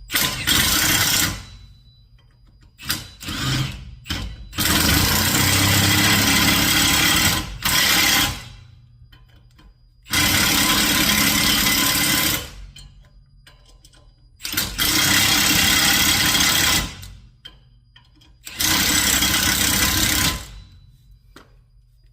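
A power wrench running down the nuts on a wheel spacer in about six bursts of one to four seconds each, with short pauses between them.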